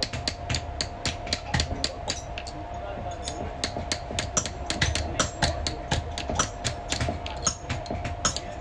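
Small steel hammer rapidly tapping pins on a metal lock plate against a steel block, sharp metal-on-metal strikes about three to four a second.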